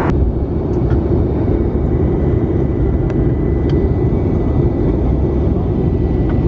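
Steady jet airliner cabin noise in flight: a dense low rumble of engines and rushing air heard from a window seat over the wing, with a faint steady high whine above it.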